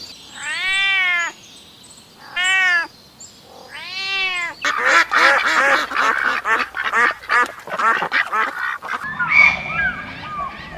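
Animal calls: three drawn-out calls that rise and fall in pitch, then a rapid run of many short calls from about five seconds in, and different calls near the end.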